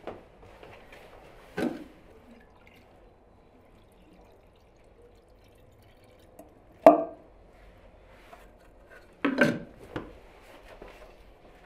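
Glass jars and plastic bottles being handled: a few separate knocks and clinks, about a second and a half in, a sharp loud one near seven seconds, and a cluster around nine to ten seconds, with faint wet handling of pomegranate mash between them.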